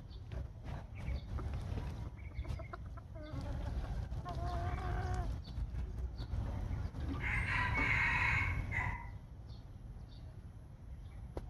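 Chickens calling: a wavering call about three and a half seconds in, then a rooster crowing for about two seconds, the loudest sound, about seven seconds in.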